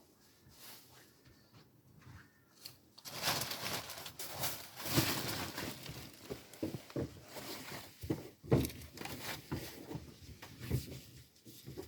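Rustling and crinkling handling noise with scattered light knocks, starting suddenly about three seconds in after a quieter stretch of faint ticks.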